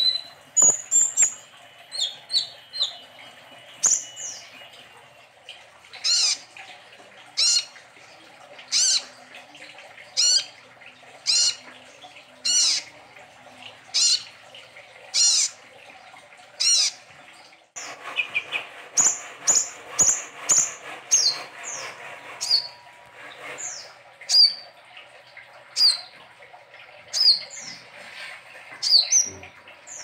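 Kolibri ninja sunbird singing actively (gacor) in its cage: a series of sharp, high chirps. They come about one every second and a half at first, then after an abrupt break a faster run follows at about two a second.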